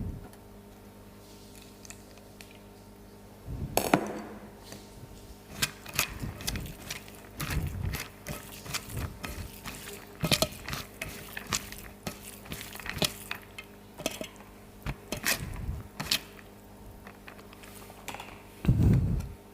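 Dishes and utensils clinking and tapping during a meal: irregular sharp clicks with a few dull low thumps, the loudest thump near the end.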